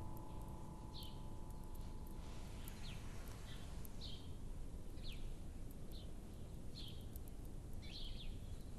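Faint ambience of small birds chirping, short high chirps about once a second over a low steady hiss.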